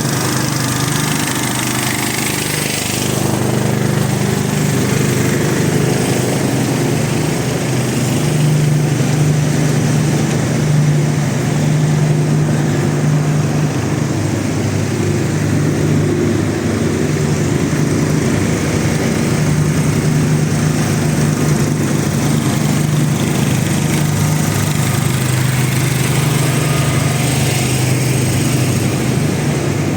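Portable generators running steadily: a continuous small-engine hum that fills the air during a city-wide power cut.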